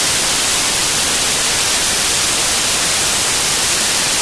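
Loud, steady static hiss like white noise, without any tone or rhythm, starting abruptly just before and holding at one level.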